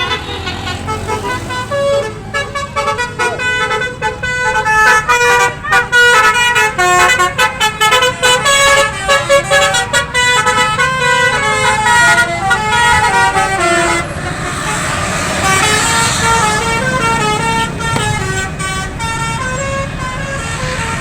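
Bus 'basuri' musical air horn (telolet) playing a quick tune of short stepped notes. About two-thirds of the way through, the sound turns abruptly noisier, with a rushing background under the horn notes, which go on.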